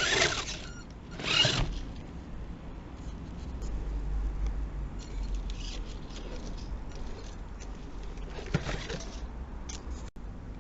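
Radio-controlled car driving, its motor whining in short spurts: twice in the first two seconds and once more near the end, over a steady low rumble.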